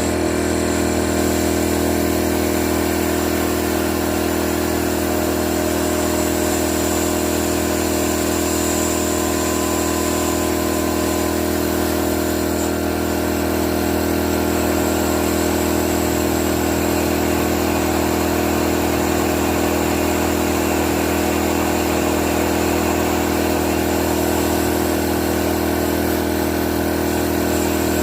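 An engine idling steadily at an even, unchanging pitch.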